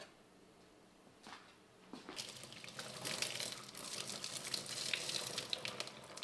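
Hot water poured from a saucepan through a stainless-steel mesh strainer into a sink to drain noodles: after a single light knock, the splashing starts about two seconds in and runs on, with many small spatters.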